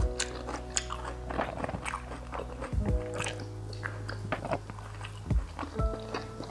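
A person chewing and biting mouthfuls of chicken curry with rice, with many short wet clicks and occasional crunches, over background music of sustained notes and a bass line.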